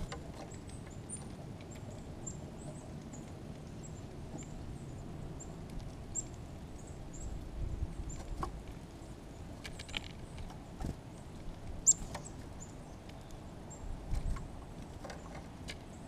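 Birds at a seed-filled window feeder: scattered sharp taps and knocks as they peck and land on the tray, the loudest a single sharp tap about three quarters of the way through. Thin, high chip notes from small birds repeat through the first half over a steady outdoor hush.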